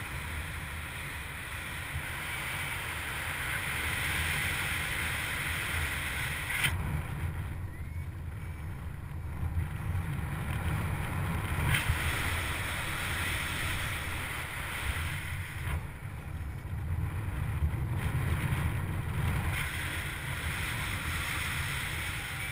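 Airflow of a paraglider in flight buffeting the camera's microphone: a steady low rumble with hiss. Sharp clicks come about 7 and 12 seconds in, and the hiss dips for a few seconds after each.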